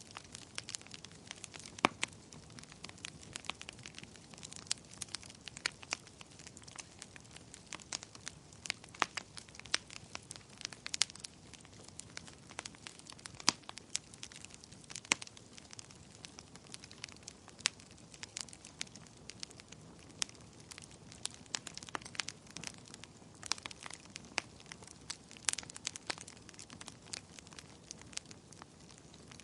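Wood fire burning in a fireplace, crackling with frequent irregular sharp pops over a soft steady hiss.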